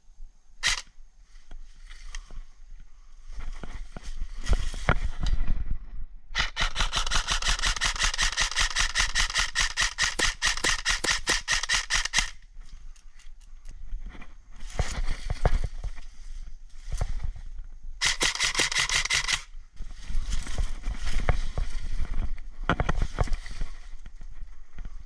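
Airsoft gun firing on full auto: one long burst of about six seconds of rapid, evenly spaced shots, then a shorter burst later, with scattered knocks and rustle between.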